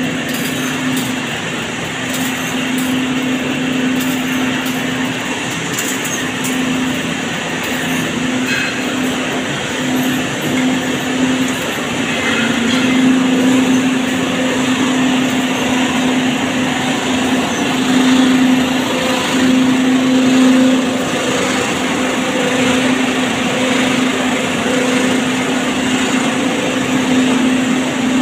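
LZ-7 straight-line wire drawing machine running: a steady mechanical hum with a constant droning tone over a hiss, and a scatter of faint clicks in the first several seconds.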